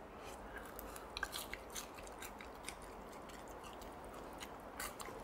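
A person chewing a bite of oil-fried thick rice cake (tteok): faint crisp crunches of the fried crust and sticky chewing, many small clicks scattered through.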